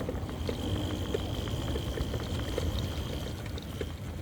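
Wind rumbling on the microphone of a handheld camera during a bicycle ride, with a steady high-pitched buzz and scattered light ticks.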